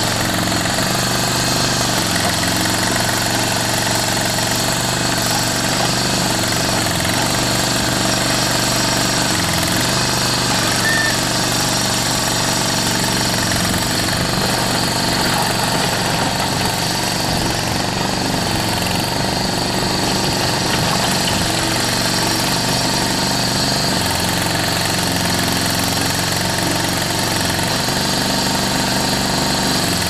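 Mini skid steer loader's engine running steadily under throttle as the machine works a log grapple, its note dipping briefly a few times.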